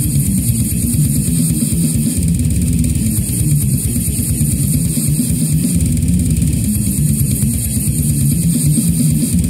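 Brutal death metal played on a heavily distorted, low-tuned electric guitar with drums: a fast, dense, pounding rhythm heavy in the low end, unbroken and steady in loudness.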